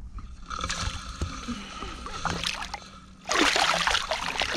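A barramundi thrashing and splashing in shallow water at the pond's edge as it is grabbed by hand, with a loud burst of heavy splashing from a little past three seconds in.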